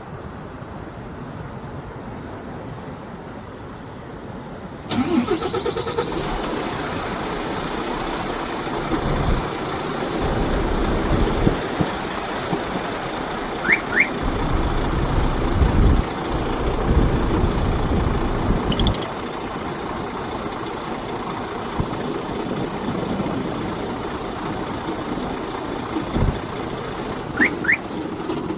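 Volvo Euro 6 cargo truck's diesel engine starting about five seconds in, catching at once and then idling steadily. A pair of short high chirps sounds twice, midway and near the end.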